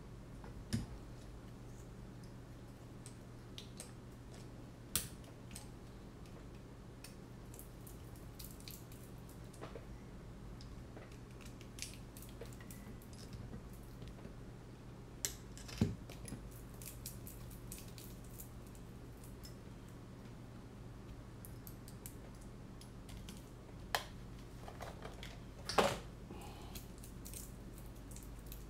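Scattered small clicks and taps of hands handling a quadcopter drone frame and its small parts and tools on a rubber work mat, with a few sharper clicks, over a steady low hum.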